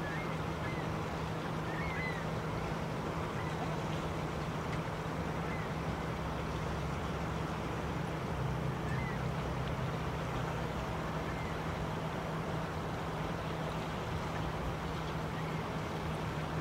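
Steady low hum over a constant rumbling background, with a few faint short chirps scattered through.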